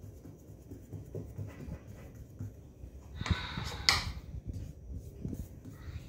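Kitchen handling sounds: hands working and rolling soft bread dough on a stone counter, with a brief rustle and a sharp knock about three to four seconds in.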